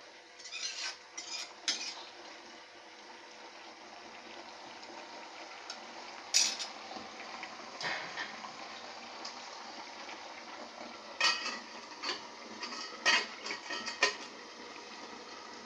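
A spoon stirring mutton chops in a pan, scraping and knocking against the pan in short clusters of clicks over a steady hiss of the chops frying down in their liquid. Stirring like this keeps the reducing mutton from sticking to the bottom of the pan.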